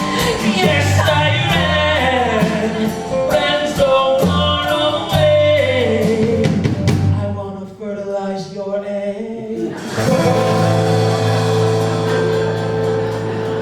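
A man singing with guitar accompaniment, a comic rock-ballad song. About seven seconds in the guitar drops out under a wavering held sung note. Then a sustained closing chord comes in and rings under a long final note.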